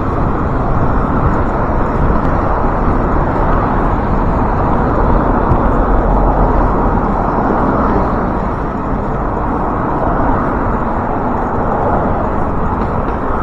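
Steady wind rushing over the microphone of a moving bicycle, mixed with the noise of main-road traffic.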